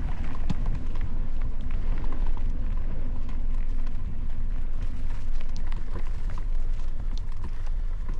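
Mountain bike being ridden up a dirt trail: a steady low rumble of wind and movement on the bike-mounted mic, with scattered small clicks and rattles from the bike and the trail surface.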